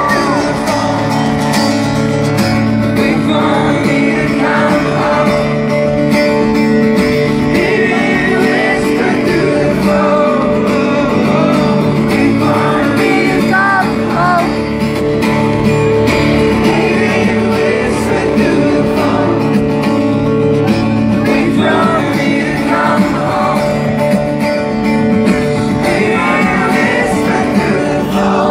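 Live concert music heard from the crowd of a large venue: a male singer performing a ballad with acoustic guitar over the PA, playing continuously.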